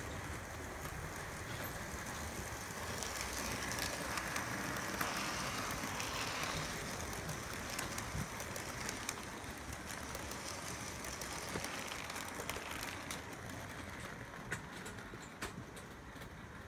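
Model train running past on the layout's track, the locomotive hauling a rake of coaches, with the wheels clicking over the rail. It grows louder as the train passes and fades near the end.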